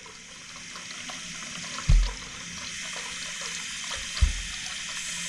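Faucet running into a sink, a steady hiss of water, run to test how fast the cleared drain goes down. Two dull thumps break in, about two seconds in and again near four seconds.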